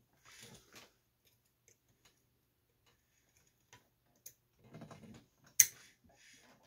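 Soldering iron tip scraping and tapping against a transistor tab and the circuit board while desoldering it. There are a few faint scrapes at the start, a short run of scraping around five seconds in, then one sharp click.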